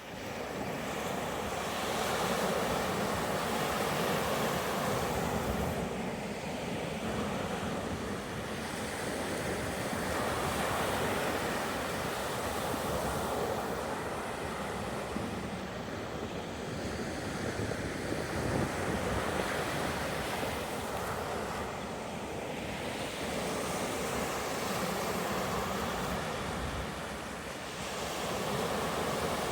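Ocean surf breaking and washing up the beach, swelling and easing every several seconds, with wind rumbling on the microphone.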